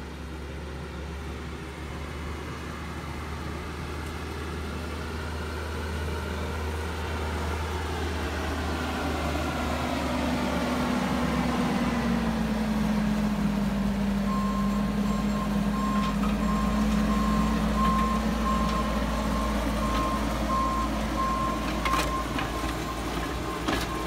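Bobcat skid steer's diesel engine running as it works a soil conditioner through the dirt, growing louder as the machine comes closer. About halfway through, its backup alarm starts beeping in an even, steady pulse.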